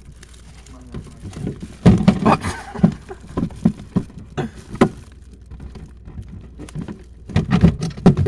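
Irregular knocks and clattering of food containers being moved and bumped against each other and the shelves inside a refrigerator, in clusters with pauses between.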